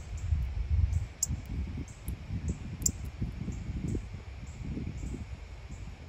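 Wind gusting on the microphone, an uneven low rumble that is loudest in the first second or so. Over it, faint high ticks repeat about every two-thirds of a second, and two short, sharp high chips come about one and three seconds in.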